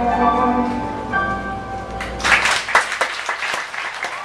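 Closing notes of a piano ballad ringing out and fading, then the audience breaks into applause about two seconds in.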